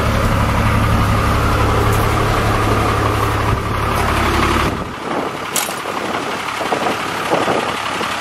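Freightliner FL80 truck's diesel engine idling, a steady low drone heard from inside the cab. The low drone drops away suddenly about five seconds in, leaving quieter, uneven engine noise with light irregular knocks.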